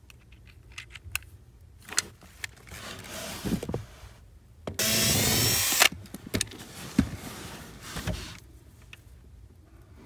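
Cordless drill with a T20 Torx bit runs once for about a second, just before the middle, backing out a trim fastener. Before and after it come small clicks and rattles of the bit and drill being handled, with a few sharp knocks near the end.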